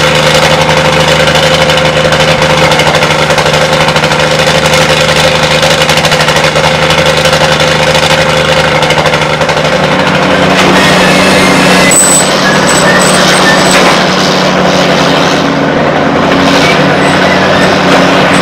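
Engine-driven water pump of a small gold-mining operation running steadily at constant speed. Its note shifts slightly about ten seconds in, and a thin high whine joins about two seconds later.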